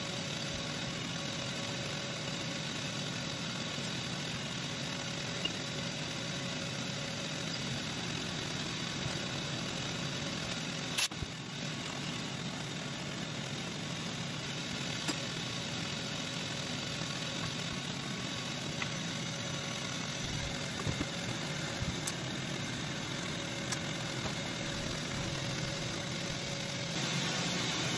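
Steady mechanical hum with a few scattered light clicks and one sharp knock about eleven seconds in.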